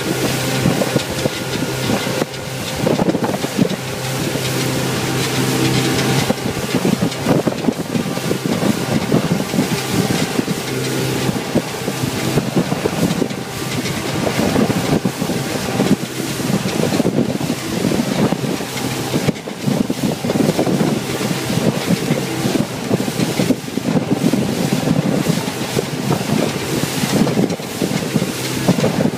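Motorboat running at speed: a steady engine drone, clearest in the first few seconds, under rushing water from the wake and wind buffeting the microphone.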